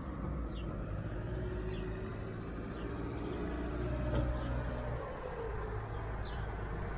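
Steady low rumble of background noise, with a faint click about four seconds in.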